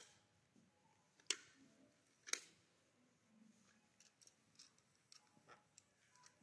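Near silence in a large echoing church interior, broken by scattered sharp clicks and taps; the two loudest come about a second apart, followed by fainter ticks.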